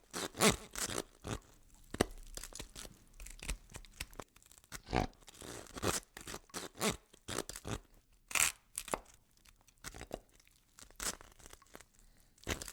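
Horror sound effect of a saw cutting through bone and flesh being ripped: irregular rasping strokes with tearing, crunching noises.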